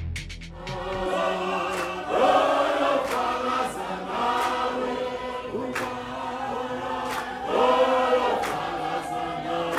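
A group of men singing and chanting together in chorus, with occasional sharp hand claps. The tail of electronic intro music cuts off about a second in.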